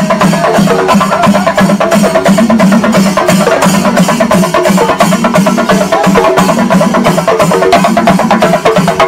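Loud percussion music: drums and cymbals struck in a fast, even beat of about four to five strokes a second, over a steady low pitched tone.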